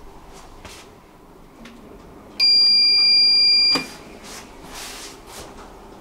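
Lift car's buzzer sounding one steady, loud, high-pitched beep about a second and a half long, as the down button on the car panel lights, cut off by a clunk.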